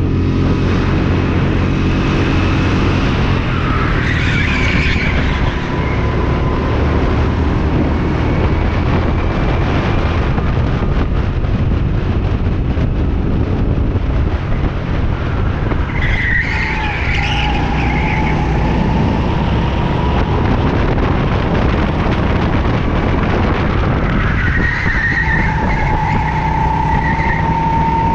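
Go-kart engine running hard at speed, heard from the driver's seat, with the tyres squealing through corners: a few seconds in, about halfway through, and again near the end.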